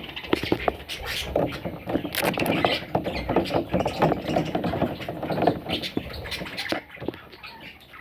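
Newborn budgerigar chicks squeaking and chirping, mixed with many short scratches and clicks, getting quieter near the end.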